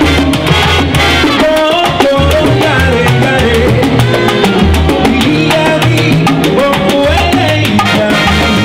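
Live salsa big band playing: a bass line and Latin percussion (bongos, timbales, congas) keep a steady beat under horn lines.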